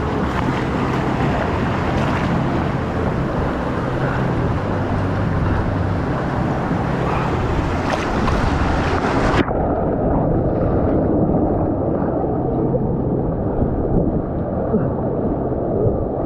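Water rushing and splashing around a raft going down a water-park rapids ride channel. The sound turns suddenly muffled about nine seconds in.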